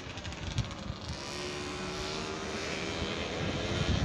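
SNCF electric locomotive running light, approaching: a steady whine with hiss that grows slowly louder as it nears.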